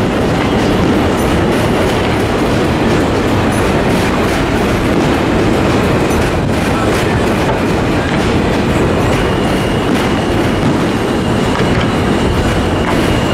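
Rail cars rumbling and clattering steadily along a track, with no firework bangs standing out; a faint high wheel squeal joins about nine seconds in.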